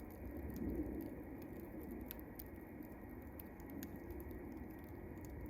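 Wood campfire burning, with scattered sharp crackles and pops over a steady low rush of flame.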